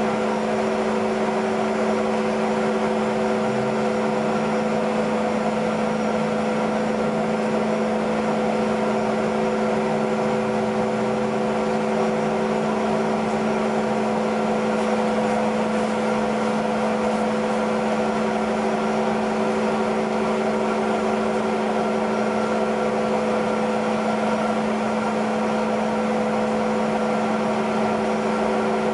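Steady cabin drone of a Bombardier CRJ-200's rear-mounted General Electric CF34 turbofans at ground idle: a constant hum of several steady tones over a hiss of cabin air.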